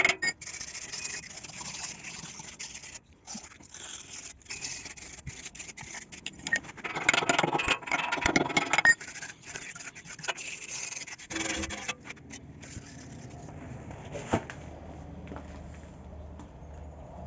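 Slag being cleaned off fresh welds on a steel pipe with a chipping hammer and wire brush: irregular scraping and metal taps, busiest about seven to nine seconds in, stopping about eleven seconds in. After that only a faint low hum.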